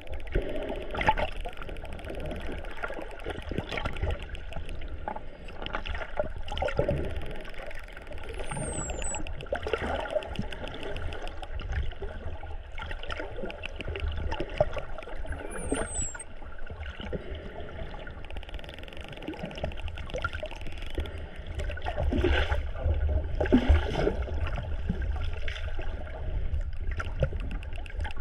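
Underwater sound as a camera hears it: steady water rush with bubbling and crackling clicks, and two short, high dolphin whistles falling in pitch, about eight and fifteen seconds in.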